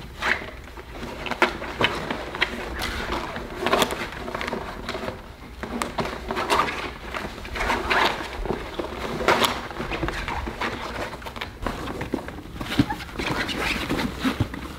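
Young English bulldog puppies whining and grunting in short irregular calls, with scuffling and clicks as they clamber about in a fabric wagon.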